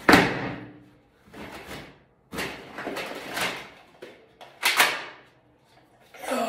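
A duffel bag of plastic toy blasters set down hard on a tiled floor with a loud clatter, then plastic knocking and rattling as the blasters are handled, with a sharp plastic clack a little under five seconds in.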